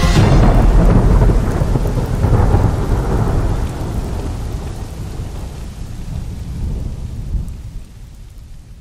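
Thunderstorm sound effect in a music soundtrack: a long thunder rumble with rain hiss, fading away steadily.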